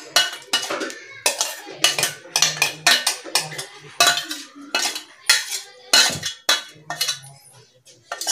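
A metal spoon scraping and knocking against a stainless steel mixer-grinder jar and steel bowl while ground green paste is cleared out of the jar: a run of irregular metallic clinks and scrapes, about two or three a second.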